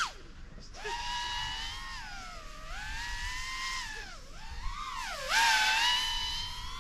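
3-inch FPV quadcopter's BrotherHobby 1504.5 3950kv brushless motors and three-blade props whining, the pitch rising and falling with the throttle. The whine drops out sharply right at the start as the throttle is chopped, comes back under a second later, and is loudest in a punch-out about five seconds in.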